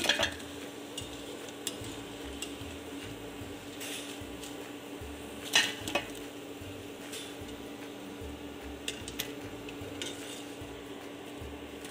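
Occasional clinks and clicks of metal kitchen utensils, the loudest about five and a half seconds in, over a steady low hum and a faint hiss.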